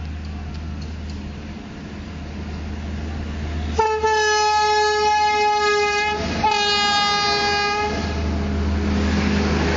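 Electric locomotive of an express passenger train sounding its horn in two long blasts with a short break between, as it passes close at speed, the pitch dropping slightly. Then the rushing noise of the coaches going by.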